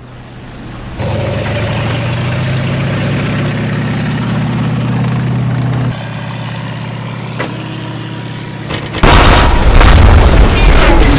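A steady mechanical hum starts suddenly about a second in and drops quieter after about six seconds. About nine seconds in, a loud explosion breaks in with further blasts as a tank is hit.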